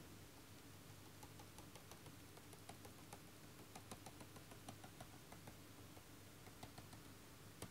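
Near silence with a low steady hum and faint, irregular light ticks of a pen stylus tapping and dragging on a drawing tablet as a line is drawn.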